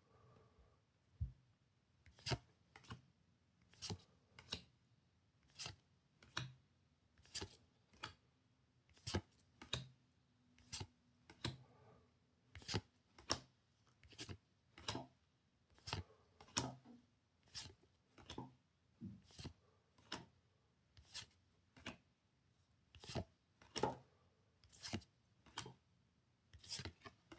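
Trading cards being flipped through one at a time, each card giving a short, crisp snap of card stock, about one to two a second.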